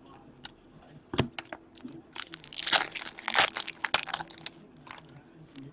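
Crinkling and rustling of plastic packaging with light clicks, as trading cards are handled; the crinkling is busiest in the middle of the stretch.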